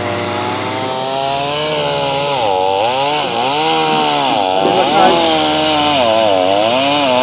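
Two-stroke chainsaw running at high revs while cutting wood. Its pitch dips and climbs back again and again as the chain loads up in the cut and frees.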